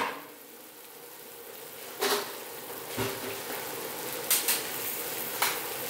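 Chicken and bell peppers sizzling in a glass baking dish fresh from the hot oven: a soft, even hiss that grows slowly louder, with a few sharp clicks.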